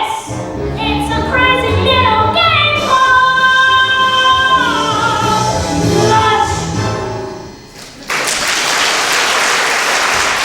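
Young performers sing the final line of a musical-theatre number over accompaniment, with a long held note in the middle, and the music ends about seven and a half seconds in. Audience applause breaks out suddenly just after.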